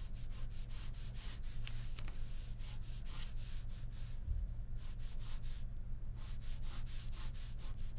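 Ballpoint pen sketching on paper: quick, light scratching strokes, several a second, with short pauses about four and six seconds in, over a low steady hum.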